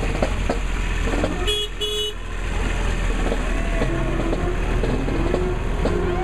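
A golf cart's horn beeps twice in quick succession, two short even notes about a second and a half in, over the steady noise of carts rolling past.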